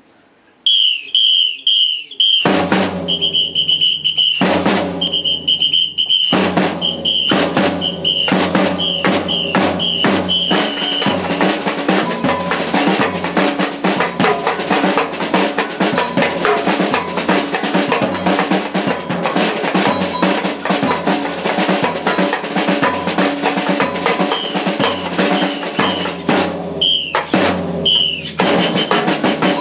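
Samba percussion groove. A whistle gives short rhythmic blasts, then drum kit and tambourine join in a steady, fast samba beat. The whistle drops out about a third of the way in and comes back near the end.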